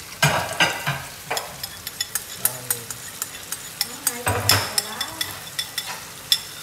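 Tamarind sauce poured into hot oil with fried garlic and lemongrass in a frying pan, sizzling and crackling with many sharp pops while a wooden spatula stirs. Louder bursts of sizzling come near the start and again about four seconds in.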